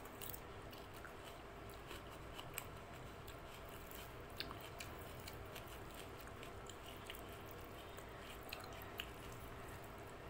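Close-up eating sounds: chewing a mouthful of rice and dal, with many small, irregular wet clicks and smacks. Fingers squish and mix rice into dal on the plate.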